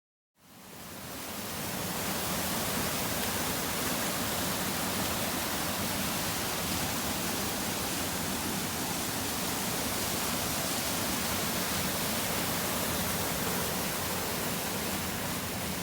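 Steady, dense rush of falling water from a waterfall, fading in over the first second or two.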